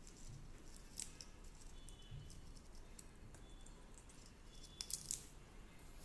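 A rose-ringed parakeet nibbling and cracking a peanut shell with its beak: faint, scattered small clicks and crunches, with a brief, louder cluster of clicks about five seconds in.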